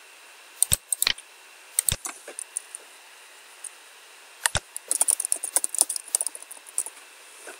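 A few separate clicks, then a quick run of computer keyboard keystrokes, typing a name, from about four and a half seconds in to past six seconds.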